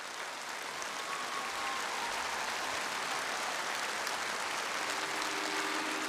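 Large audience applauding steadily. About five seconds in, the first held notes of the song's instrumental introduction come in under the clapping.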